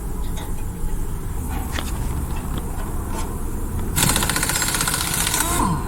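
A steady low rumble, then about four seconds in a loud, rapidly rattling hiss from a compressed-air tool, lasting about a second and a half.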